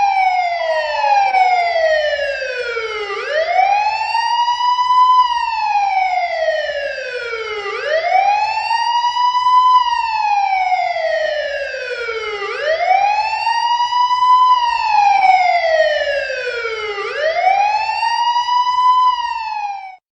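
Spanish police car siren wailing, its pitch rising quickly and then falling slowly, about once every four and a half seconds. It cuts off at the very end.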